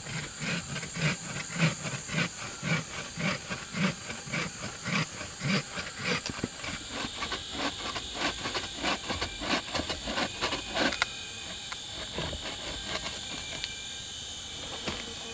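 Bucksaw cutting through wood in even back-and-forth strokes, about two a second, stopping with a sharp crack about eleven seconds in. A steady high hiss runs underneath throughout.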